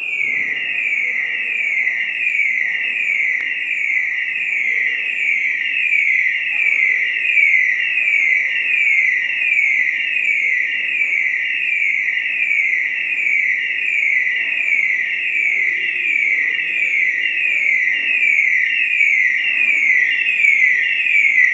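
Electronic alarm sounding a loud, repeating falling sweep, just under two sweeps a second, starting abruptly and keeping up a steady pattern.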